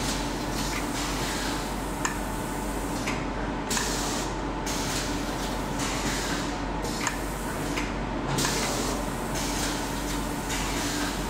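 Pneumatic machine on a panettone cooling line, where needles skewer each cake: compressed air hisses steadily and breaks off briefly now and then, over a steady machine hum, with a few sharp clicks.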